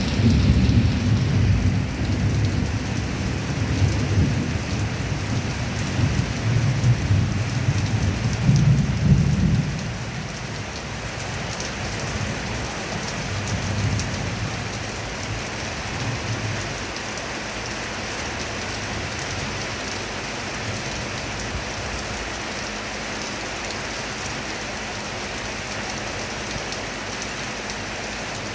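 Heavy rain falling steadily, with a long roll of thunder rumbling for about the first ten seconds and a fainter rumble a few seconds later, then rain alone.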